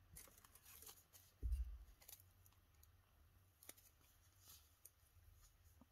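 Quiet handling noises at a work table: scattered light clicks and the rustle of a paper cellulose pad being picked up, with one dull thump about one and a half seconds in.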